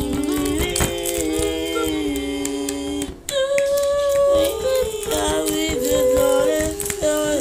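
Voices singing a cappella in harmony, a slow anthem-like tune in long held chords; the singing breaks off briefly about three seconds in, then a new phrase starts on a higher note.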